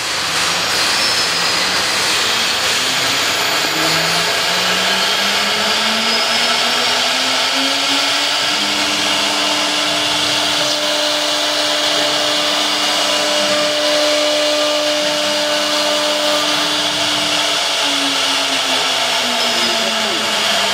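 CNC router spindle cutting PVC foam board with an end mill: a loud, steady hiss and whine of cutting. A lower tone climbs over the first several seconds, holds steady, then drops near the end.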